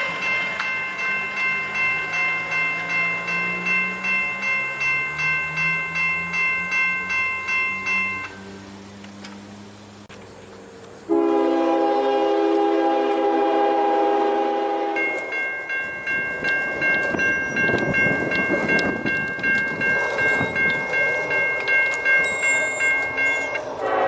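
Railroad crossing bell ringing in a steady repeating beat for about eight seconds, then a brief lull. A Nathan K5LA multi-chime locomotive air horn sounds one loud chord for about four seconds. The crossing bell then rings again over the rumble of a passing train.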